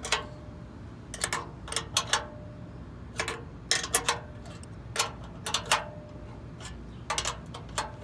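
Metal wrench clicking and clinking against the bolt heads and steel latch bracket of a Jeep trail door latch as the bolts are barely loosened. A dozen or so sharp clicks come at irregular intervals, some in quick pairs, a few with a brief metallic ring.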